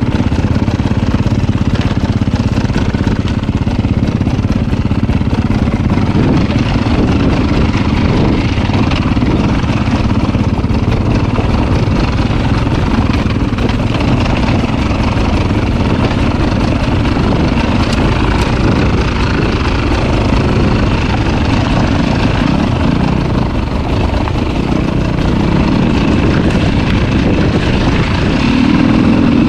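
Two-stroke dirt bike engine running continuously under riding, its pitch shifting a little as the throttle changes.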